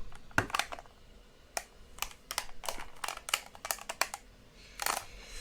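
Irregular series of small, sharp plastic button clicks, about fifteen in five seconds, as buttons are pressed in quick succession.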